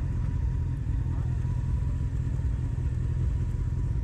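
Low, steady rumble of motorcycle engines running.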